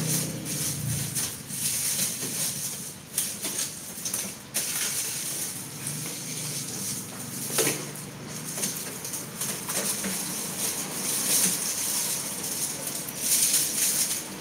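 Dry, papery garlic skins rustling and crackling as a hand rummages through whole garlic bulbs in a plastic basket, with the bulbs knocking together and a few sharper clicks.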